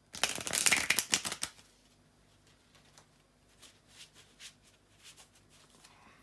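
A tarot deck being riffle-shuffled: a fast crackling run of card edges flicking together for about a second and a half, then a few soft scattered clicks of cards being handled.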